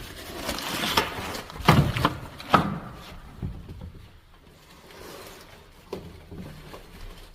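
Knocks and scraping of something being handled and set down, a few sharp thuds in the first few seconds, the loudest about two and a half seconds in, then quieter shuffling and one more knock near the end.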